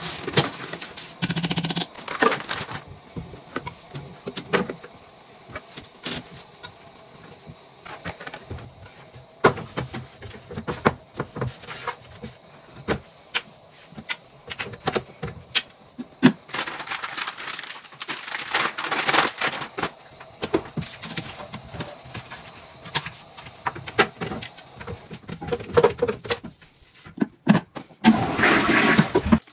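Household cleaning sounds: scattered clicks and knocks of objects being handled and set down, with a couple of longer stretches of swishing or rubbing noise, one in the second half and one near the end.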